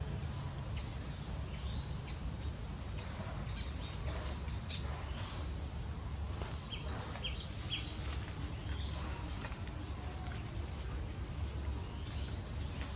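Outdoor ambience: a steady low rumble under a thin, constant high whine, with a scattering of short high chirps mostly in the middle few seconds.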